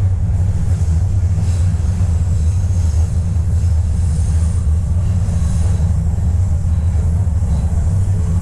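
Toronto subway train running between stations, heard from inside the car: a steady low rumble, with a faint high whine rising and falling over it.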